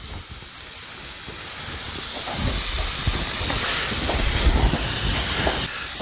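Flour-dredged chuck roast cubes sizzling in hot oil in a cast iron skillet, the sizzle growing steadily louder as the oil heats. Irregular low rumbling runs under it through the middle.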